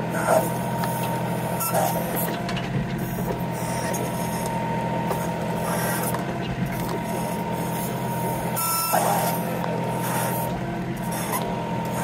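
A compact tractor's engine running steadily under load, with a thin steady whine from the backhoe hydraulics, as the John Deere backhoe bucket works at a stump's roots. A few brief scrapes and knocks come from the bucket and roots, the longest about three quarters of the way through.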